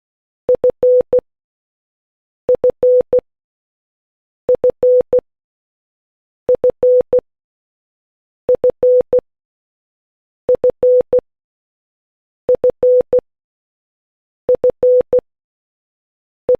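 Morse code beeps for the Korean letter ㄴ (nieun), dit-dit-dah-dit, in a single steady tone, the group repeating about every two seconds.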